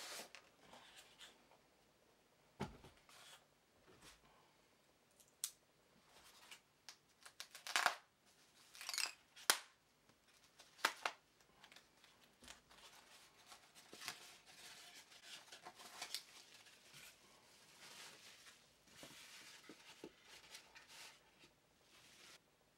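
Cardboard box and foam packing being handled and opened: scattered scrapes, rustles and sharp clicks as the packed spiral bulb is taken out of its box.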